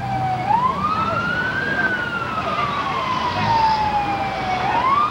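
Emergency-vehicle siren wailing. Its pitch climbs in about a second, falls slowly over the next three, and starts to climb again near the end.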